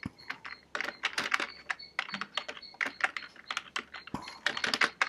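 Typing on a computer keyboard: a run of quick, irregular keystrokes as a name is typed into a text field.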